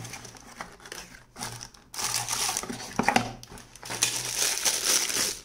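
Thin plastic packaging bag crinkling as hands handle and unwrap a power adapter, in two loud stretches about two and four seconds in, with a sharp crackle just after three seconds. Quieter cardboard packaging handling comes first.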